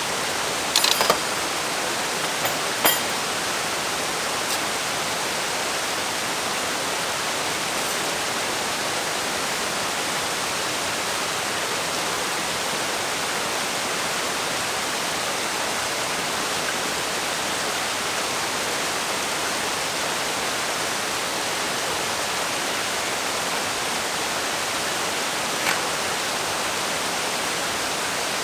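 Steady, loud rush of a river and waterfall close by, an even noise that does not change, with a few light knocks about a second in, around three seconds in and once near the end.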